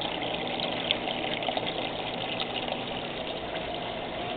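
Steady rush of pump-driven water circulating in an aquaponics fish tank, with a low, even hum from the pump underneath.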